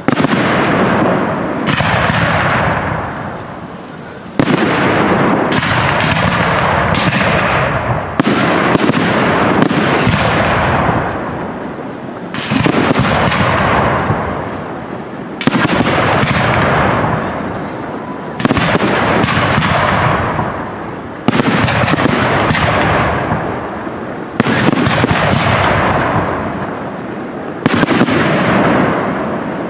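Aerial firework shells bursting one after another, a sharp bang every one to three seconds, each trailing off in a long fading echo.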